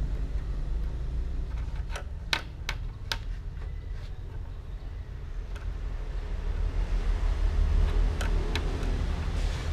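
A plastic ballpoint pen tapping and knocking on a wooden desktop as a kitten bats at it: a handful of sharp taps, several in a quick cluster about two seconds in and a pair near the end. Under the taps runs a steady low rumble.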